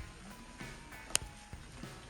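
Soft background music, with one sharp click about a second in.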